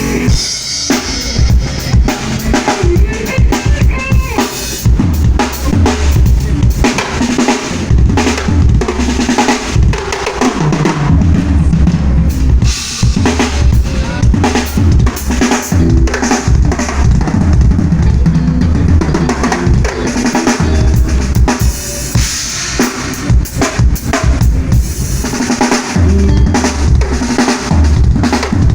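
Acoustic drum kit played continuously at a soundcheck: bass drum, snare and cymbals in a steady groove with fills.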